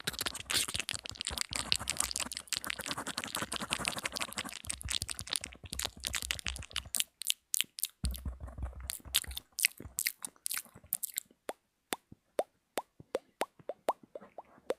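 Close-miked ASMR mouth sounds: wet tongue and lip clicks packed densely for about the first seven seconds, then thinning out into separate clicks and short popping plops.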